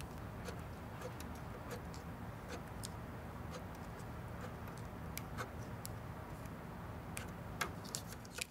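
Faint, irregular little ticks and scratches of a pen marking a paper form, over a low steady room hum.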